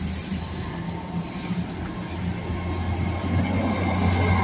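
GWR Hitachi class 800/802 bi-mode intercity train moving slowly past the platform on its underfloor diesel engines. A steady low engine hum with wheel noise on the rails grows louder toward the end.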